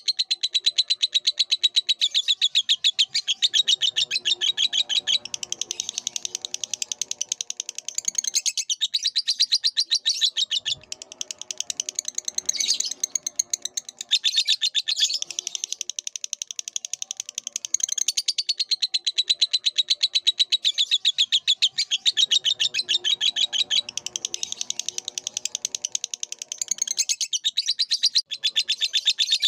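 Lovebird singing: a long, unbroken stream of rapid, high chirps and twitters. Twice a softer, lower chatter sounds underneath it.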